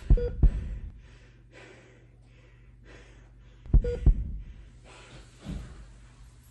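Slow heartbeat sound effect: two deep thumps close together, repeated almost four seconds later, with faint breathing between.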